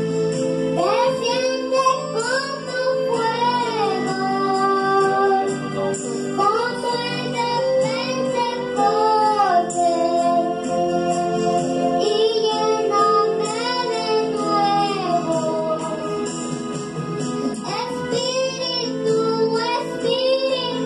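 Young girl singing a children's worship song into a microphone, her voice amplified through a portable speaker over a backing track of steady sustained chords.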